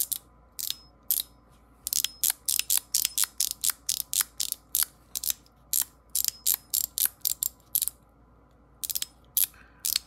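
Dolphin metal fidget toy clicking through its ball-and-spring detents as it is worked back and forth: many sharp clicks in quick, uneven succession, with a pause of about a second near the end. The balls and springs have just been refitted, and the detents now feel stronger.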